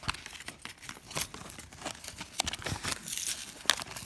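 Plastic blister pack of trading cards being pried and torn open by hand: irregular crinkling and tearing of the plastic shell and cardboard backing, with a sharp crackle near the end.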